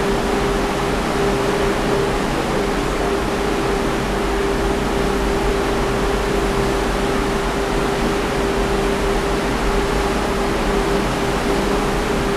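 Gale-force wind of about 50 knots rushing steadily across a ship's balcony and over the microphone, with a steady single-pitched hum running underneath.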